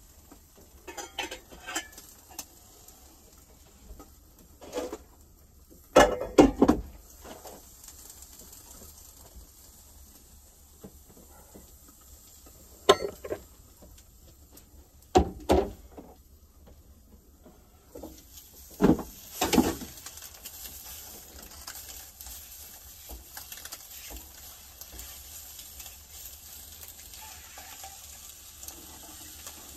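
Dishes, pans and utensils being handled at a small kitchen counter: irregular clunks and clatters, several of them sharp and loud. A steady hiss comes in about two-thirds of the way through.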